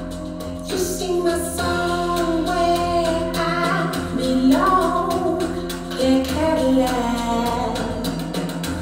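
A song played back through open-baffle full-range speakers driven by a 6BM8 tube amplifier: a singing voice comes in under a second in over sustained chords and light percussion ticks.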